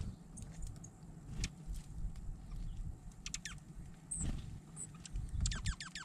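Small songbirds calling with quick downward-sliding chirps, a few about three seconds in and a rapid run near the end, over soft ticks and low thumps.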